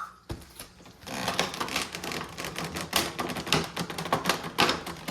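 Packaging being handled, with dense irregular crackling and rustling that starts about a second in.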